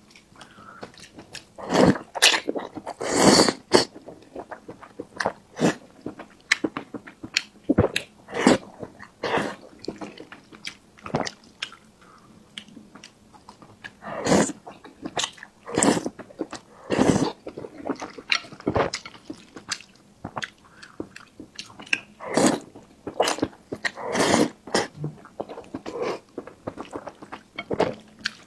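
Close-miked mouth sounds of a person eating: wet chewing and smacking with irregular sharp clicks, about one or two a second.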